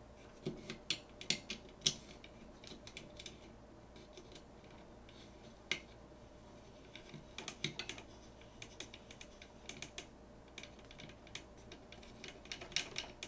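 Light, irregular clicks and ticks of a small hex key driving M3x6 screws into a printed-plastic 3D-printer toolhead, in scattered clusters.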